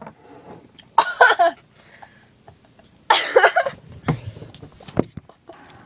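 A girl coughing hard, in two loud bursts about two seconds apart: she feels sick from eating too much whipped cream.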